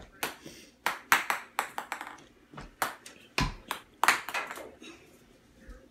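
Ping-pong balls bouncing on a hard floor: a run of quick, sharp ticks at irregular spacing, some in fast clusters.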